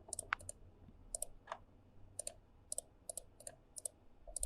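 Faint computer mouse clicking: about a dozen short, sharp clicks at irregular intervals, some in quick pairs.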